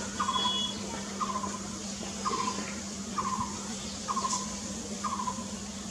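Blue-throated barbet calling: a short, quick rolling phrase repeated about once a second, six times, with each phrase falling slightly in pitch.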